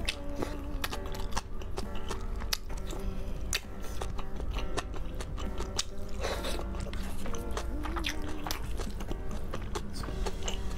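A person eating noodles: chewing and slurping mouth sounds with many short, sharp wet clicks, over background music.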